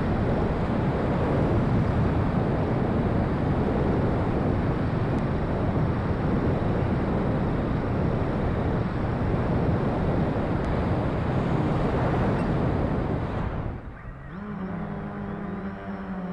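Wind rushing over a wing-mounted onboard camera, with the FoxTech H-Wing VTOL's electric motors and propellers running in fast forward flight. Near the end the rush drops away suddenly and a steady motor-and-propeller hum takes over as the aircraft pitches nose-up, slowing from forward flight toward a hover for landing.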